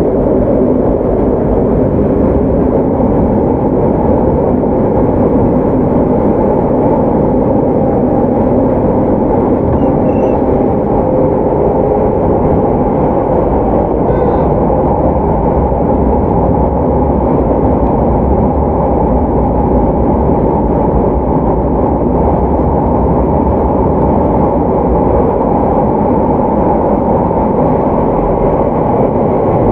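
Running noise of a JR Hokkaido 731 series electric train's Hitachi IGBT-VVVF motor car, heard from inside the car: a steady, even rumble of wheels on rail and running gear, with no change in speed.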